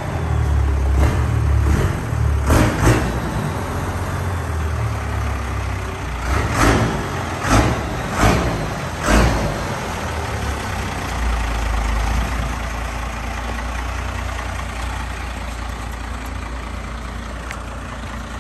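Cummins diesel pickup engine with an exhaust stack through the bed, running at idle with a steady low drone. Several short loud bursts come in the first ten seconds, after which the idle runs on evenly.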